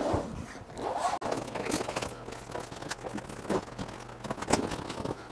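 Fabric of a replacement Bestop soft top rustling and scraping as it is flipped down and pulled by hand over the windshield header, in irregular brushes with several sharper crinkles.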